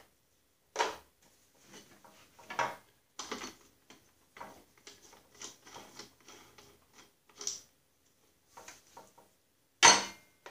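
Hands working a riding mower's seat and its mounting knobs and bolts: scattered clicks, knocks and rattles, with a sharp knock about a second in and a louder one near the end.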